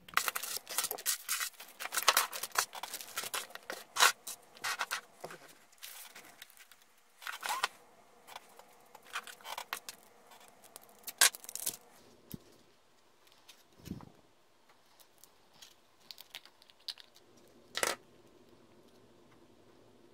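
Handling noise as a camera is turned and repositioned and small gel pots are moved about on a tabletop: a dense run of clicks, scrapes and rustles for about the first twelve seconds, then a few isolated knocks.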